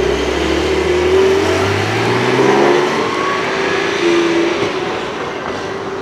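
A car's engine accelerating, its pitch rising over the first few seconds with loud surges, then the sound fading toward the end as the car pulls away.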